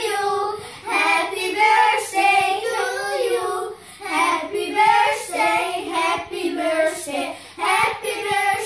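Three children singing a song together in their own voices, with short breaks between phrases.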